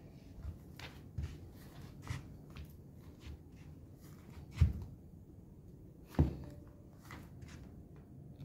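Slow footsteps, soft knocks about two a second, with two louder thumps a little past halfway.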